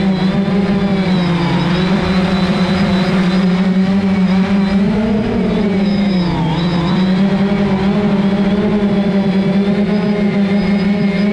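Multirotor drone's propellers buzzing at a steady pitch, which dips and recovers a few times as the motors change speed.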